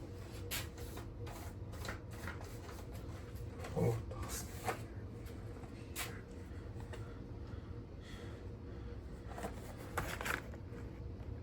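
Scattered clicks, taps and rustles of objects being handled, over a steady low hum, with a dull thump about four seconds in and a louder flurry of rustling near the end.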